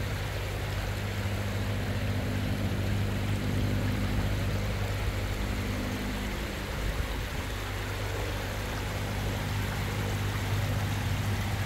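Floodwater flowing steadily across and along a submerged road, a continuous rushing wash. A low steady hum sits underneath and fades about halfway through.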